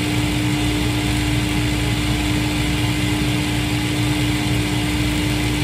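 Shoe repair finishing machine running steadily with a constant hum while a cowboy boot heel is held against one of its spinning wheels.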